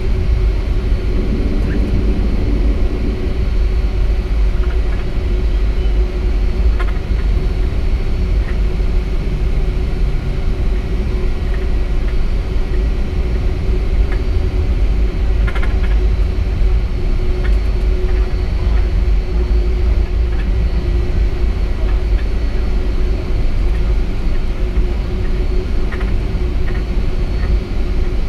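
Cabin noise of a Boeing 757-300 taxiing: a steady low rumble from the idling engines and the wheels rolling on the taxiway, with a constant hum and a few faint clicks.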